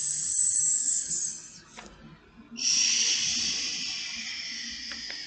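A person making an airplane whoosh with her mouth: two long, steady, breathy hisses, the first fading out about a second in, the second starting about two and a half seconds in and slowly dying away.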